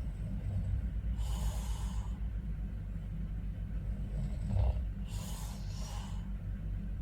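A sleeping man snoring and breathing noisily: two long hissing breaths, about a second in and about five seconds in, with a short snort between them, over a steady low rumble.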